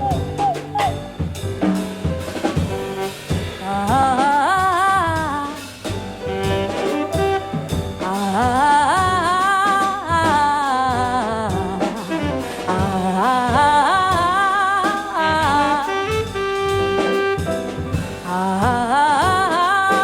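Jazz quintet playing: a wavering lead melody in phrases of a few seconds each over piano, double bass and drum kit.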